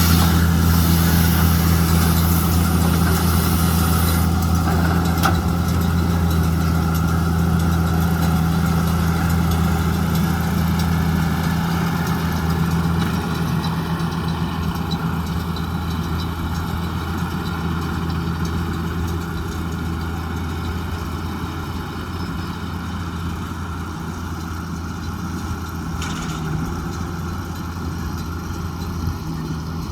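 JCB Fastrac 2170 tractor's diesel engine running steadily with a deep hum, slowly growing fainter.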